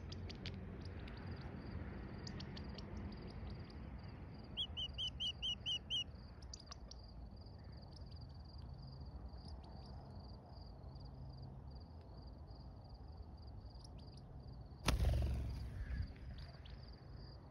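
Quail chick giving a quick run of about seven high peeps about five seconds in, over a steady high insect trill typical of a cricket. Near the end comes one sudden loud rush of noise that fades over about a second.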